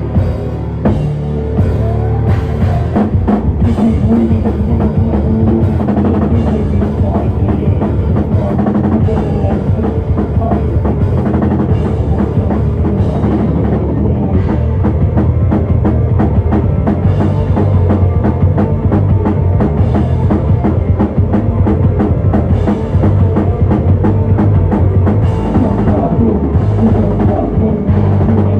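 Live heavy rock band playing loud: fast, dense drum kit with bass drum and snare under distorted guitars and bass, recorded from the audience in a small room.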